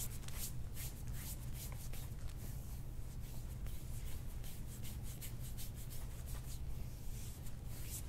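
Hands massaging oiled skin on the shoulders and upper back, a soft swishing rub with each stroke, repeated two or three times a second.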